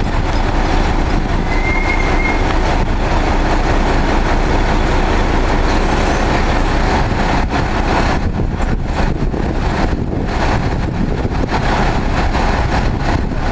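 Heavy truck engines running steadily at close range during a tow recovery of a fire engine. A brief faint high tone comes about two seconds in.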